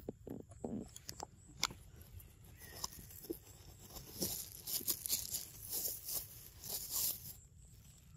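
Faint scattered clicks and crackles, with a denser stretch of high, crisp crackling from about four to seven seconds in.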